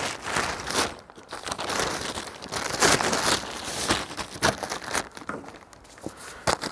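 Irregular crinkling and crunching from yard waste and a plastic tarp being handled and loaded, in uneven bursts with a few sharp snaps near the end.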